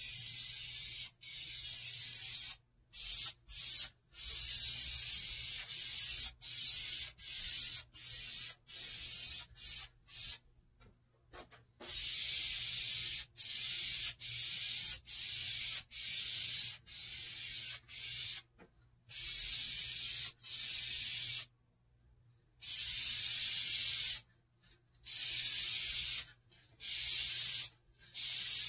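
Aerosol can of vinyl and fabric paint spraying onto a vinyl car seat in many short hissing bursts, most under a second long with a few longer passes, separated by brief silences.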